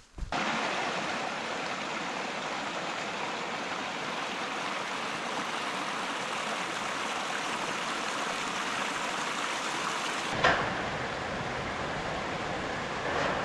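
Small rocky stream running over stones in a steady rush of water. About ten seconds in there is a short knock, and the rush turns deeper.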